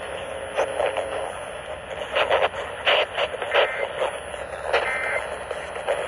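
Midland NOAA weather radio's small speaker hissing with reception static and crackle, then two short two-tone data bursts about a second apart in the second half: the SAME end-of-message codes that close the EAS Required Monthly Test broadcast.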